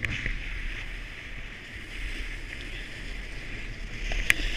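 Snowboard sliding over packed, tracked snow: a steady hiss of the base and edges on the snow with wind on the microphone, and a couple of sharp clicks at the start and about four seconds in.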